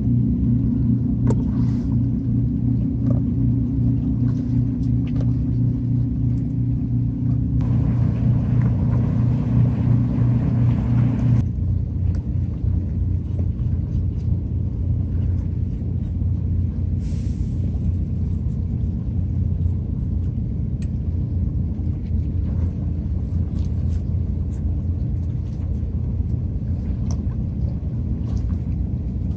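A steady low engine drone, louder and rougher for a few seconds about a quarter of the way in, with faint light clicks of a knife working on a plastic cutting board.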